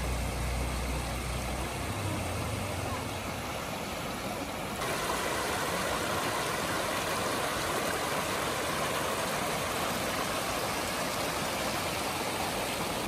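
Steady rushing of a flowing stream, which turns suddenly louder and brighter about five seconds in. A low rumble sits under it in the first two seconds.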